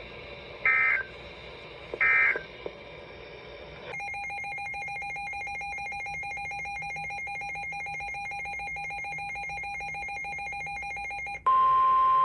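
Emergency Alert System tones: two short data bursts in the first couple of seconds, the end-of-message code closing the previous warning. About four seconds in, a steady two-tone attention signal with a buzzy edge starts and holds for about seven and a half seconds. Near the end it cuts off and a louder single steady tone takes over, the weather-radio warning alarm that announces the next alert.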